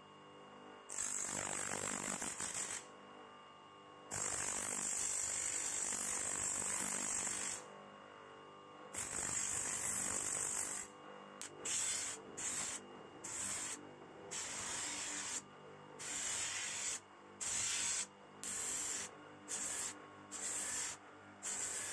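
Steel blade of a pair of tin snips ground on a sanding disc spun by a small bench electric motor, throwing sparks. Under the motor's steady hum, each contact is a loud hiss: three long passes of a few seconds each, then about ten short touches in quick succession.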